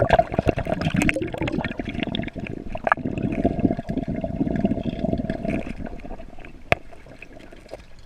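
Close water splashing and sloshing, busy and irregular, over a steady hum, with one sharp click near the end; the splashing eases off in the last couple of seconds.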